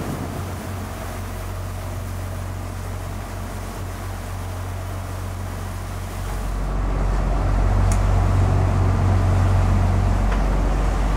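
Sportfishing boat's engines running under way: a steady low hum over a rush of wind and water, growing louder about six and a half seconds in.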